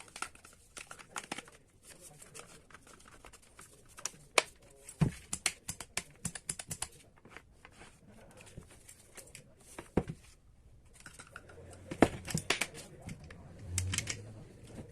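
Hands handling small hard parts and tools: irregular clicks and knocks with some rustling, and sharper knocks about 5, 10 and 12 seconds in.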